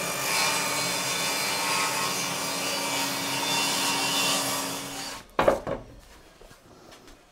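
Bosch GTS10XC table saw running and cutting through a board pushed on a crosscut sled, a steady whine under the cutting noise. The sound cuts off suddenly about five seconds in, followed by two short knocks.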